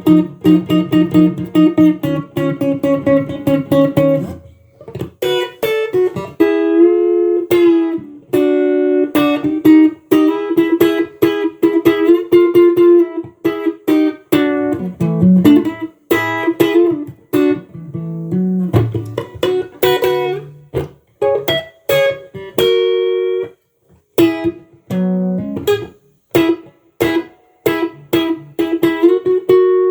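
Tomson Spirit Sounds Stratocaster-style electric guitar played unaccompanied in a clean tone: picked single-note melodic phrases with brief pauses between them.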